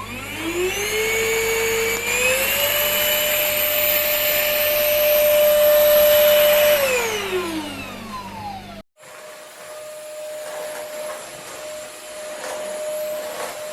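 VersLife S6PRO cordless stick vacuum's motor starting up, its whine rising in two steps to a steady high pitch, running, then switched off and winding down about two-thirds through. After a brief break it is running again at a steady pitch, with a few faint clicks near the end.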